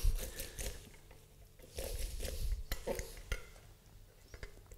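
Half a lemon being twisted and pressed on a stainless-steel hand citrus juicer, with soft squishing and a few light metal clicks and knocks.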